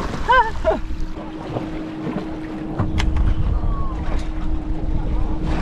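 Wind rumbling on the microphone and water lapping against a small fishing boat, over a faint steady hum. A brief voice sounds at the very start, and there is a single sharp click about three seconds in.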